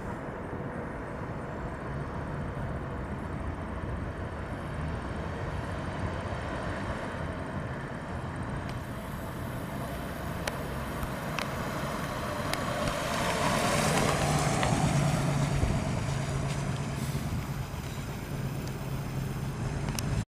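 1955 Ford Mainline's 235 cubic-inch inline six running as the car drives around. It grows louder about 13 seconds in and eases off again by about 16 seconds.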